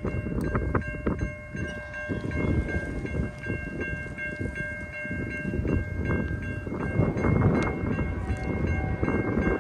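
Railroad crossing warning bell ringing in quick, steady strokes as the crossing gates come down, with wind buffeting the microphone.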